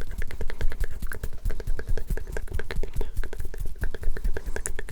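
Close-miked ASMR trigger sounds: a rapid, unbroken run of small clicks and taps, several a second.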